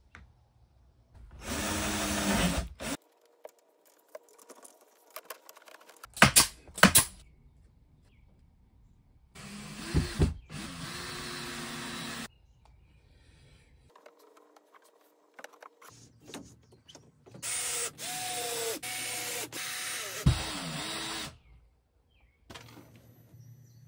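Power drill running in several short bursts, its pitch winding up and down with each run. A few sharp, loud bangs come about six to seven seconds in.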